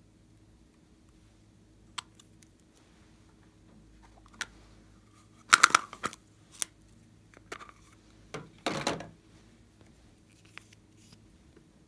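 Small plastic slime containers and bottles being handled on a tabletop: a few light clicks and taps, and two short bursts of rustling and scraping about five and a half and eight and a half seconds in.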